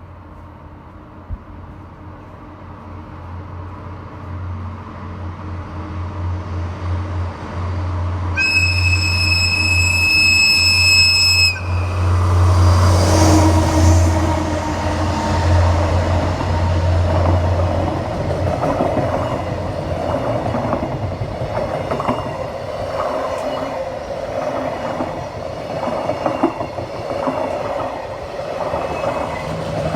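A freight train approaches, its locomotive engine drone growing louder, and the locomotive sounds its horn in one steady blast of about three seconds. The train then passes close by, and its wagons clatter rhythmically over the rail joints.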